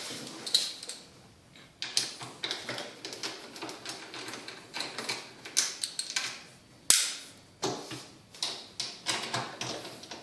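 Hand tool unscrewing the bolts inside an Electrolux dishwasher: a run of irregular metallic clicks and short scrapes, with one sharper click about 7 seconds in.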